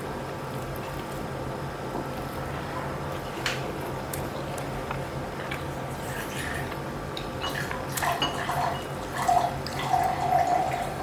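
Close-up hand-eating sounds: fingers working rice and curry on the plate with a sharp click a few seconds in, then a run of wet mouth and chewing sounds in the last few seconds as food goes into the mouth. A steady low hum underlies it.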